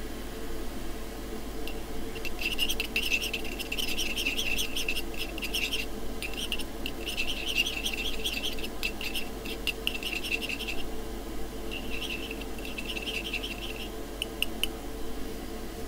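A thin metal stirring rod scraping and ticking around the inside of a small metal mixing cup as model paint is stirred, in quick strokes with two short pauses. A steady hum sits underneath.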